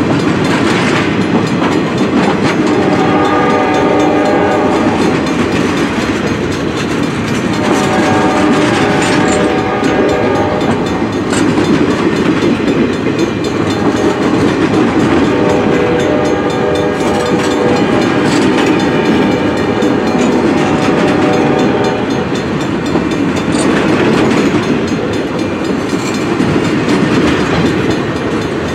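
Flatcars of a Norfolk Southern maintenance-of-way train rolling past close by, a steady loud clatter of steel wheels on rail. A locomotive horn sounds several blasts of about two seconds each over it.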